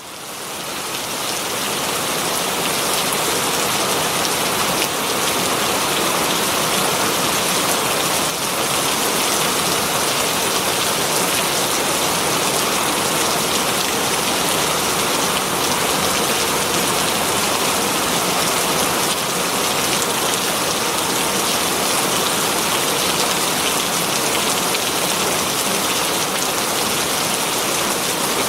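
Very heavy rain falling on leaves: a dense, steady hiss of drops that fades in over the first second or two and then holds even.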